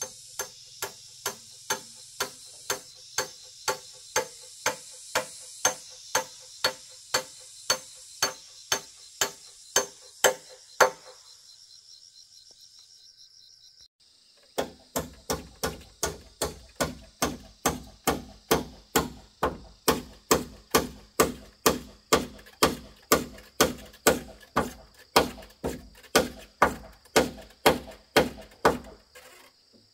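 Hammer striking nails into a wooden pole frame in steady, even blows about two a second, stopping for a few seconds midway and then starting again.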